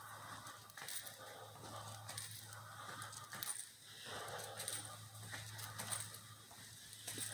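Footsteps and small clicks and taps on a hard tile floor, echoing in a stone mausoleum corridor, at irregular moments over a steady low hum.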